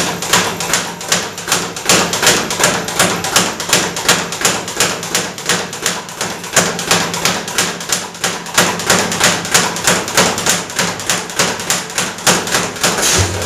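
Speed bag being punched in a fast, steady rhythm, the leather bag rebounding off the platform's rebound board in quick knocks, several a second.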